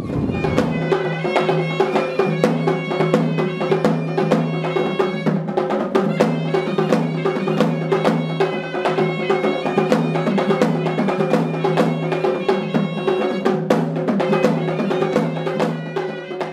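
Background music: a steady low held drone under quick struck notes and percussion with an even beat, beginning to fade out at the very end.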